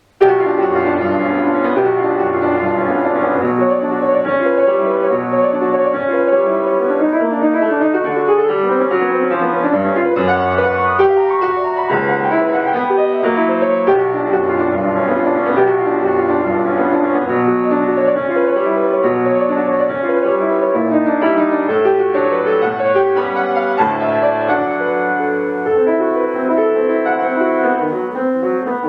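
Solo piano playing a classical piece, coming in suddenly just after the start and going on without a break.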